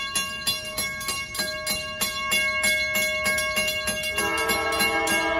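Railroad grade-crossing warning bell ringing in rapid, even strikes. About four seconds in, the approaching train's air horn joins, sounding a sustained multi-note chord over the bell.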